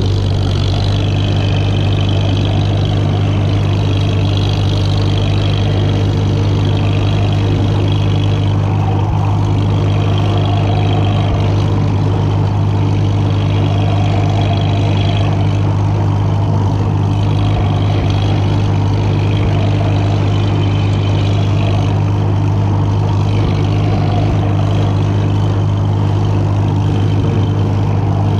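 Farmall H tractor's four-cylinder engine running steadily at a constant speed, heard from the driver's seat close behind the exhaust stack.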